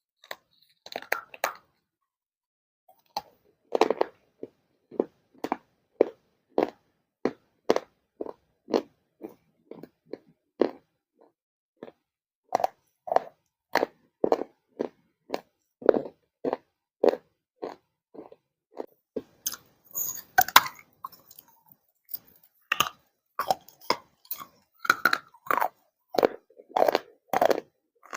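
Close-up crunching and chewing of hard baked clay, about two crunchy bites a second, with a denser burst of crackling about two-thirds of the way through.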